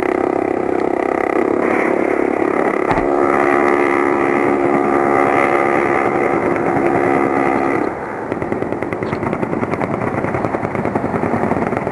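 An aircraft's rapid-fire gun firing one long continuous burst, heard as a steady buzzing zipper sound that cuts off abruptly about eight seconds in. A rapid crackle of the rounds impacting follows.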